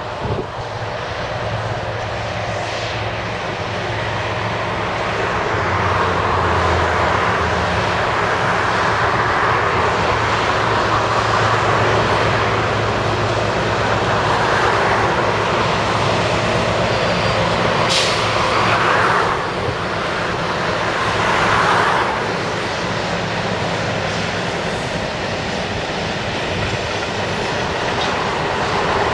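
DB Schenker Class 60 diesel locomotive 60001, its Mirrlees eight-cylinder engine running steadily under load as it pulls away with a train of empty steel wagons, the wagons' wheels rolling behind it. It grows louder over the first few seconds, with a sharp click about eighteen seconds in.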